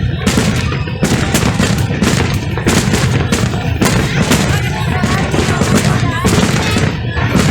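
Fireworks display going off in a dense, rapid barrage of bangs and cracks, several a second, over a constant low rumble.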